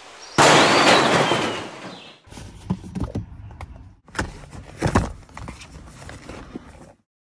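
A pickup truck door being opened, heard as a loud rush of noise for about a second and a half. Then a cardboard box holding a portable tire inflator is handled and opened on the seat: cardboard scraping with several sharp taps and knocks.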